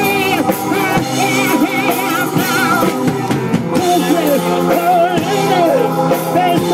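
A live band playing, with drum kit and a singing voice that wavers in pitch.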